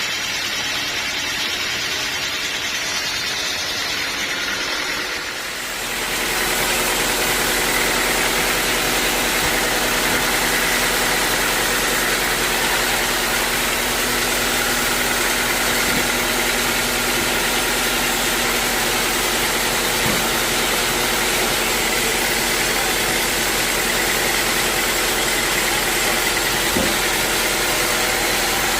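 A sawmill's machinery running with a steady engine-like drone. About six seconds in the sound changes abruptly and grows louder, then stays steady.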